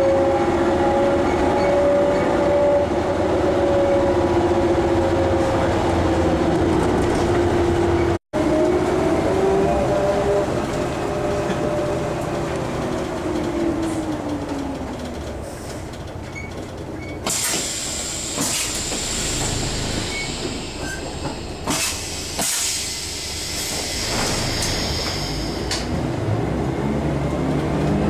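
MAN SL 200 city bus heard from inside the passenger cabin while driving: the diesel engine and drivetrain run with a pitched whine that holds steady, falls away as the bus slows past the middle, and rises again near the end as it picks up speed. Between these, hissing and light rattles come through, with a very brief dropout about eight seconds in.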